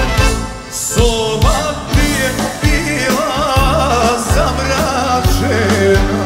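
Live Serbian folk band music with a steady drum and bass beat; about a second in a male singing voice with heavy vibrato comes in over it.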